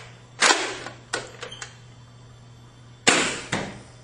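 Nerf Recon CS-6 spring-powered foam dart blaster being worked and fired: two sharp loud bursts about two and a half seconds apart, each followed by a shorter click or knock.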